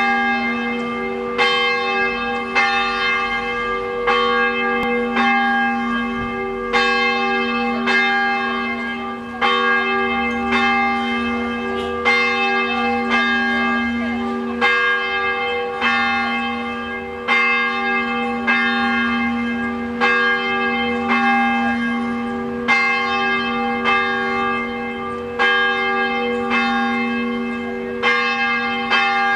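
A single church tower bell being rung, struck about every 1.3 seconds, each stroke ringing on into the next.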